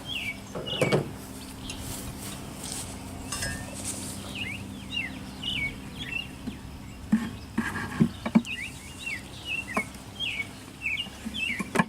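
Honeybees humming steadily around an open hive, with a bird giving many short, falling chirps throughout. A few sharp clicks and knocks of wooden hive frames being handled, mostly in the second half.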